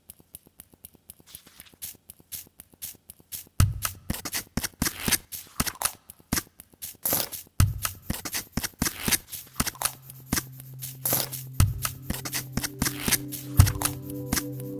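Outro music built on a fast pattern of crisp, scratchy clicks with a deep kick-drum thump every few seconds; held chord notes come in about two-thirds of the way through.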